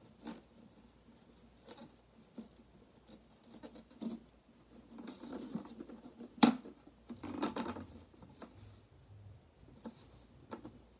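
Handling of a Shark Vertex vacuum's clear plastic dust bin: scattered light clicks and rubbing, busier in the middle, with one sharp knock about six and a half seconds in.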